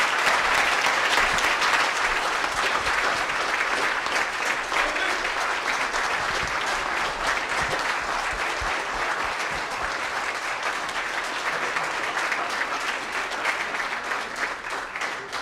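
A roomful of guests applauding steadily, the clapping easing slightly toward the end.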